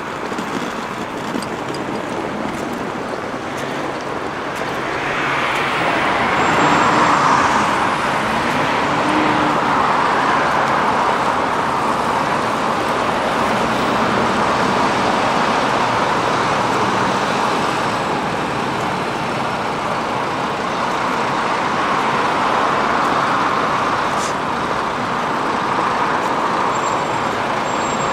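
City road traffic: cars and heavier vehicles passing in a steady stream, swelling louder as vehicles go by, most of all about a quarter of the way in.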